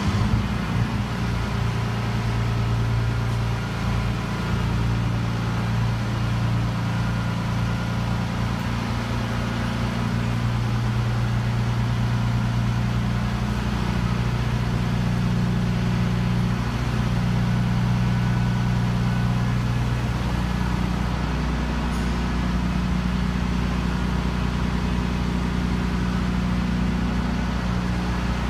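Diesel engine of a mobile crane running at raised revs while it hoists a heavy suspended load: a steady low drone that picks up sharply at the start, its pitch shifting slightly now and then.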